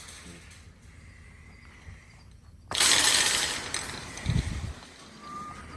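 Quiet, then a sudden burst of metal clattering and rattling about three seconds in, followed by low thumps, as wild hogs scramble against the metal trap panels and trailer.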